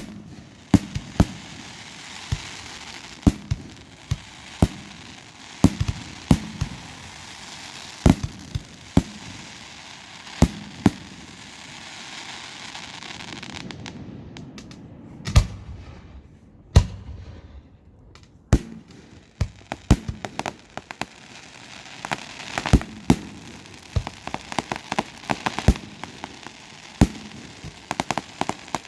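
Fireworks display: aerial shells bursting in a series of sharp bangs over steady crackling. The bangs thin out about halfway through, then come thick and fast in a rapid cluster near the end.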